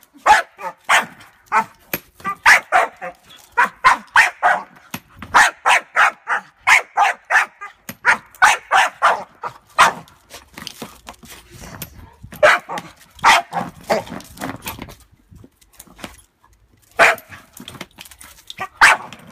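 Staffordshire bull terrier x Rottweiler cross barking hard and repeatedly, in fast runs of several barks a second with a couple of short breaks. She is barking at a suitcase as its extending handle is moved up and down.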